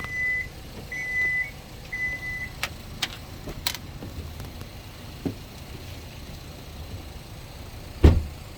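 Car smart-key warning alarm beeping, a single high tone about once a second, three times: the car no longer detects the smart key inside. After it stops come a few sharp clicks, then a heavy thump near the end.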